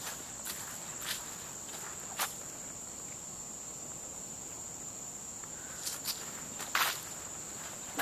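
Steady high-pitched buzz of summer insects in woodland, with footsteps crunching on a dirt trail strewn with dry leaves: a few steps in the first couple of seconds, a pause, then more steps near the end.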